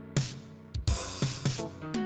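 Funk backing track: drum hits over held chords.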